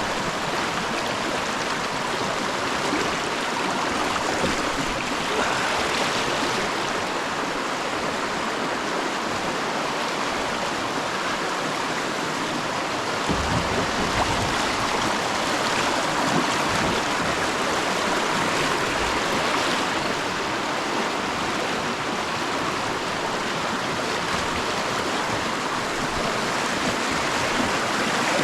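Rushing whitewater of a river rapid, a steady, even rush of water, with a brief low rumble near the middle.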